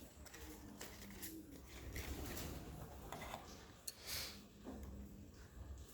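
Faint rustles and light taps of paper being handled and pressed into shape, with a short sharper rustle about four seconds in.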